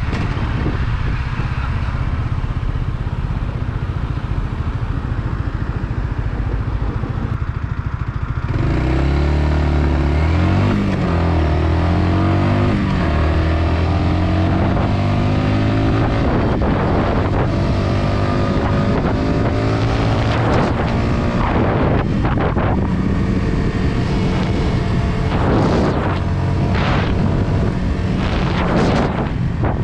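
Yamaha XSR125's single-cylinder four-stroke engine on the move: a low rumble at first, then about eight seconds in the engine note comes up strongly, rising and falling in pitch as the bike accelerates through the gears, before settling into a steadier cruising note.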